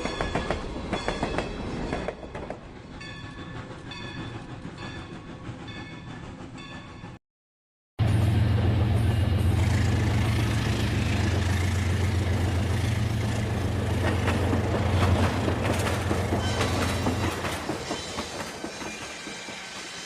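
Battery-powered toy train running on its plastic track: a rattle of regular clicks that fades, then, after a brief cut to silence, a louder steady motor hum that eases off near the end.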